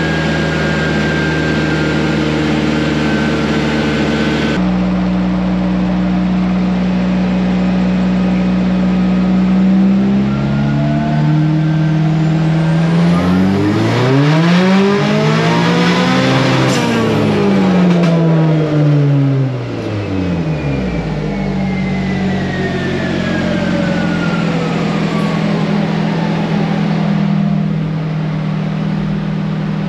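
Turbocharged Honda K24 four-cylinder engine of an off-road buggy running on a chassis dyno: idling, then revving up steadily through a dyno pull to a peak about sixteen seconds in and falling back to idle. A thin whine falls away for several seconds after the revs drop.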